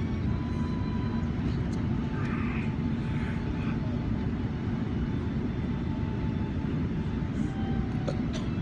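Steady low drone inside a jet airliner's cabin in flight: engine and airflow noise, unchanging.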